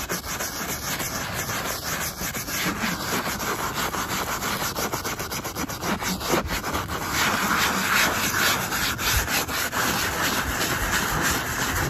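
A plastic bristle brush scrubbing wet marine vinyl upholstery in rapid, brisk strokes, working mildew stain remover into the mildew stains. The scrubbing gets a little louder about seven seconds in.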